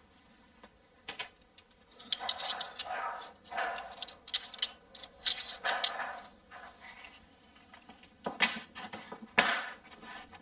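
Pencil scratching lines onto a plasterboard wall in a series of short strokes, with light knocks from handling the tools.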